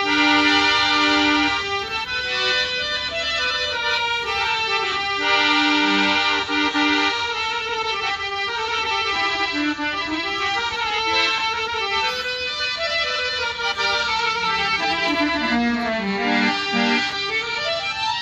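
Electronic harmonium with a built-in Casio sound module playing a melody.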